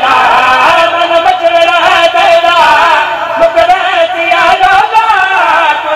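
Male voice singing a drawn-out, wavering melodic line of a qasida with no break, amplified through a microphone.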